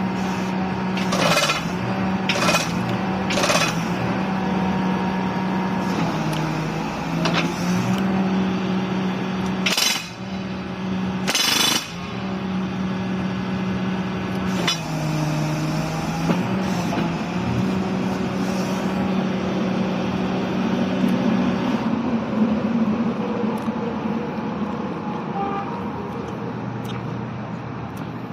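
Excavator-mounted hydraulic rock drill and splitter working over the excavator's steady engine, with five short loud bursts in the first twelve seconds. The engine note drops in pitch twice, as if under hydraulic load.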